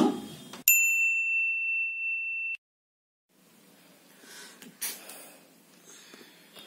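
A single high-pitched tone that sounds suddenly, holds steady for about two seconds and cuts off abruptly, followed after a short silence by faint rustling noise with a soft click.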